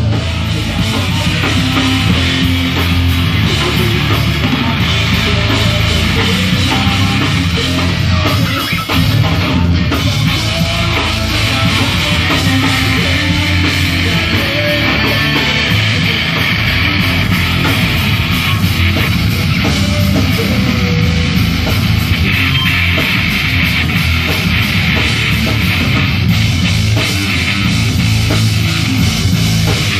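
Live heavy rock band playing loudly, with electric guitar, bass guitar and drum kit.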